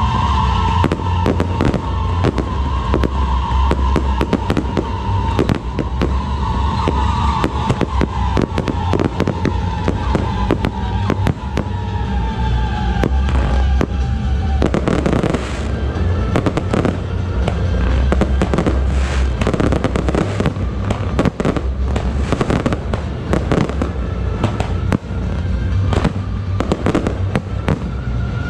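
Fireworks display: a dense run of bangs, pops and crackle from fountains and bursting aerial shells over a deep rumble. Through the first half a long tone slides slowly down in pitch, then stops about halfway through.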